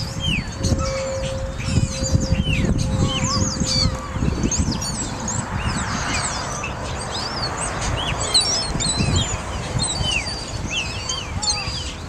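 A flock of gulls calling over and over, many short, slurred cries overlapping, as the birds crowd in to be fed. A low rumble of wind buffets the microphone underneath.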